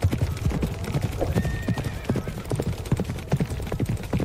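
A group of horses galloping, their hooves beating in a fast, uneven run of thuds.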